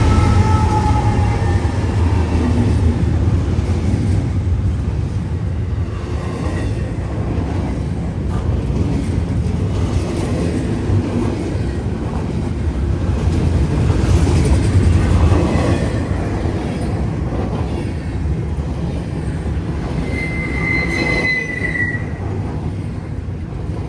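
A train rolls past, its wheels and cars making a steady, heavy rumble on the rails. The last of a locomotive horn trails off in the first second or two. A brief high wheel squeal comes near the end.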